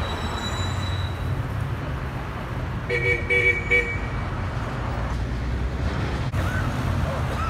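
Steady street traffic rumble, with a car horn giving a few quick short beeps about three seconds in.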